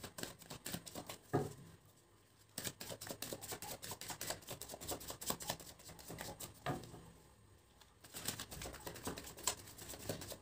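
Small folded paper slips rustling and crackling as a hand stirs through a box full of them, in spells broken by two short pauses.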